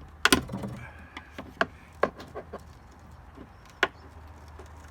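Clicks and knocks of a screwdriver levering at the retaining clip on the end of an Audi A2 tailgate gas strut: a quick cluster right at the start, then single sharp knocks about one and a half, two and four seconds in.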